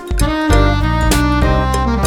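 Instrumental background music with a melody of held notes over a bass line and beat.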